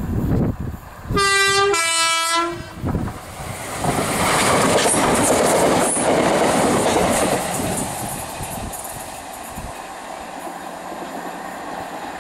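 Class 313 electric multiple unit sounding its two-tone horn, a higher note then a lower one, each about half a second. Then the train passing close at speed, a loud rush of wheel and rail noise that slowly fades.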